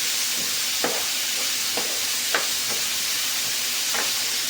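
Chopped onions sizzling steadily in hot oil in a pan, with short scrapes of the stirring spoon against the pan every second or so as they are stirred.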